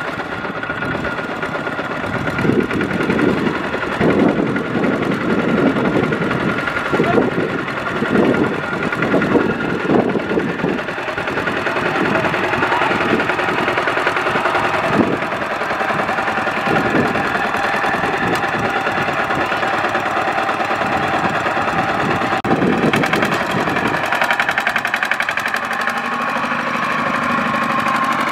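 Single-cylinder diesel engine of a Kubota two-wheel walking tractor running under load as it pulls a loaded rice trailer through mud, surging unevenly for the first several seconds and then running more steadily.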